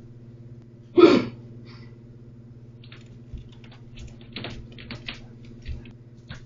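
Fingers tapping irregularly on a slim computer keyboard, with scattered key clicks from about three seconds in, over a steady low electrical hum. A single louder bump comes about a second in.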